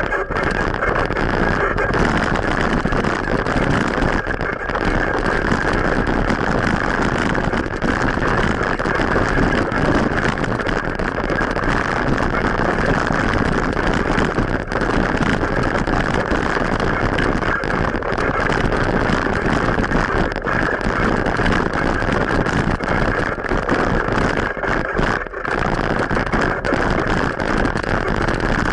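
Steady rushing road noise from riding a bicycle along a road with motor traffic: wind and tyre noise on an action camera's microphone.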